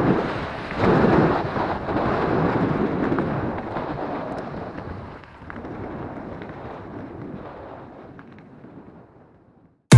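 Wind buffeting an action camera's microphone as an e-bike rolls along a gravel track, mixed with the rumble of tyres on loose gravel. It surges in gusts and fades out near the end.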